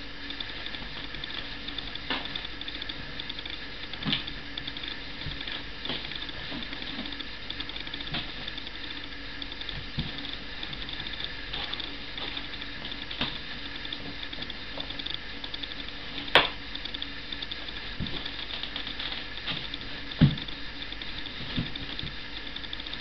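Dog digging and scratching at a blanket in a cardboard box, claws rasping on the fabric and cardboard with many small clicks and a couple of sharper knocks: nesting behaviour, making her bed before lying down to sleep.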